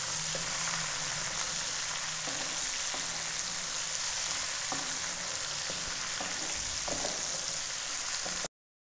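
Chopped okra sizzling as it fries in oil in a metal pot, stirred with a wooden spatula, with a few soft scrapes of the spatula against the pot. The sound stops abruptly near the end.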